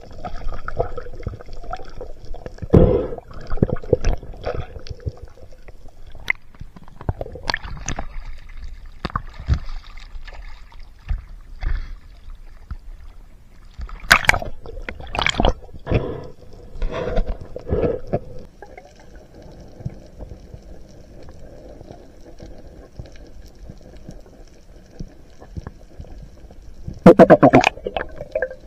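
Water sloshing and splashing around a spearfisher's camera as it moves between underwater and the surface, over a low steady underwater rumble. A loud splashing burst near the end.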